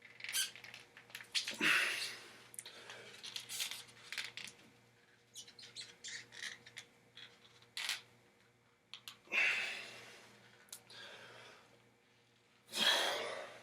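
Hard, forceful exhalations, three of them about a second long, while a 60d nail wrapped in suede pads is forced past 90 degrees by hand, with short squeaks and clicks from the hands and pads working the nail between them.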